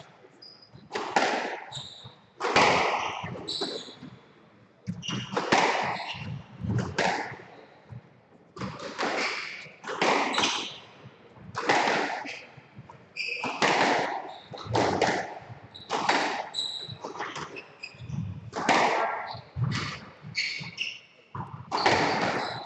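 Squash rally: the ball cracking off rackets and the walls about once a second, sometimes in quick pairs, each hit echoing in the court, with short shoe squeaks on the wooden floor between hits.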